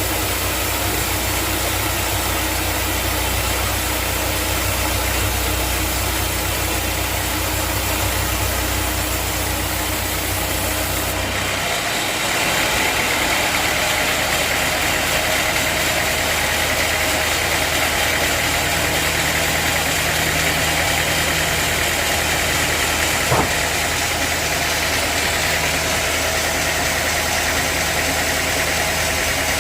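Sawmill engine running steadily. Partway through its note shifts and a higher whine joins it, and there is one short sharp click near the end.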